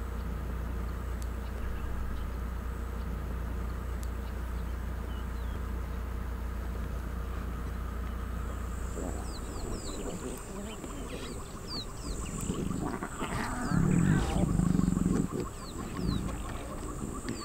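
Lions calling in low, throaty bursts about two-thirds of the way in, the loudest sound, over a steady high buzz and many short high chirps. A steady low hum in the first half stops about nine seconds in.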